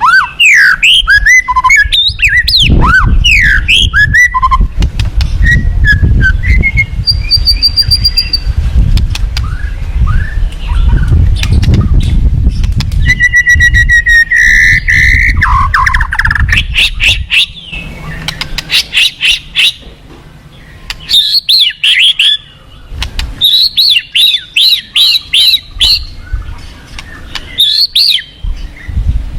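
White-rumped shama (murai batu) singing loud, varied whistled phrases. The song runs from quick rising and falling slurs to a held note about halfway through, then rapid trilled bursts. A low rumbling noise sits underneath through the first half.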